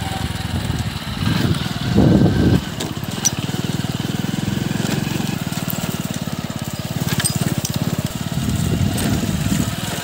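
Small motorcycle engine running steadily as the bike rides along a dirt track, with a brief louder surge about two seconds in.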